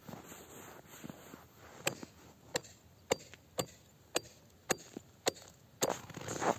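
Steel ice chisel (ice spud) chopping into pond ice, about eight sharp strikes roughly two a second, starting about two seconds in. The strikes are cutting a fishing hole.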